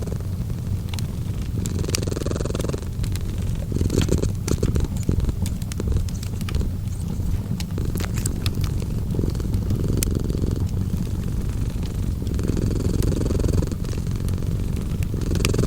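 A cat purring continuously, the low rumble swelling with each breath every couple of seconds, over the scattered pops and crackles of a fireplace.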